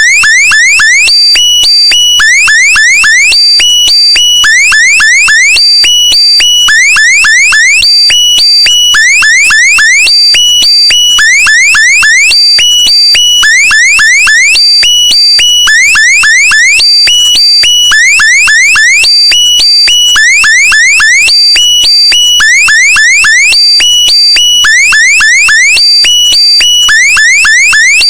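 Electronic alarm sound: groups of about four quick rising chirps, repeating about every second and a half without a break.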